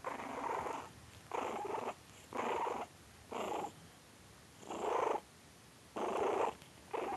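Chihuahua-pug mix puppy growling in play, a string of short rough growls about one a second.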